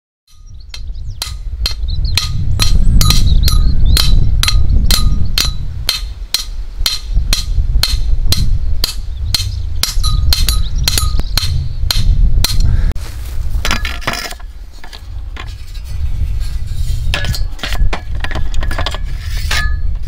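Hammer blows driving a rusty perforated steel stake into the ground: a fast, even run of ringing metal-on-metal strikes, about two to three a second, which stops about thirteen seconds in. After that come a few scattered metal clinks. A steady low rumble runs underneath throughout.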